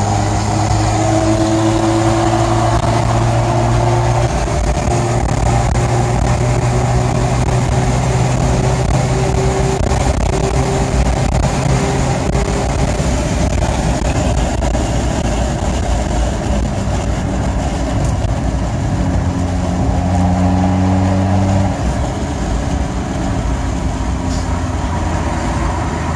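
Car engine and road noise heard from inside the cabin at highway speed, the engine held at steady revs with its note shifting a few times and easing off near the end.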